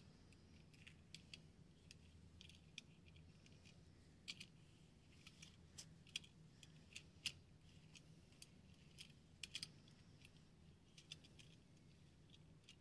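Faint, irregular light clicks and taps, scattered unevenly and a few in quick succession, over a low steady hum.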